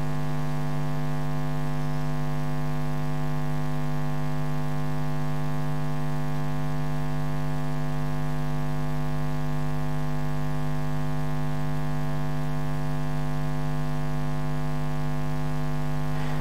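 Steady electrical mains hum in the sound system: a low buzz with many evenly spaced overtones, unchanging in level.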